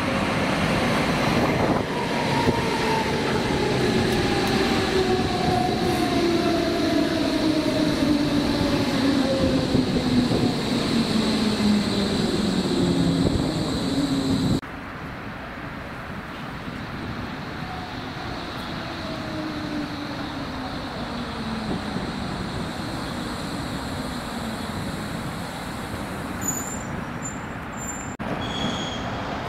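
Berlin S-Bahn Class 480 electric train braking as it arrives at a platform: its traction motors whine in two tones that fall steadily in pitch as it slows, over the rumble of the wheels on the rails. About halfway the sound drops to a quieter but similar falling whine of a second train slowing, with a few short high squeaks near the end.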